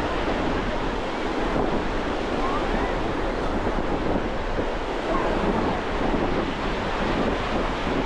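Sea waves washing onto the shore in a steady wash of surf, with wind rumbling on the microphone.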